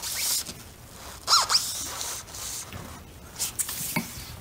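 Torque wrench tightening a rear shock's upper mount bolt under load: squeaks and rasps as the bolt turns, with a few short clicks near the end.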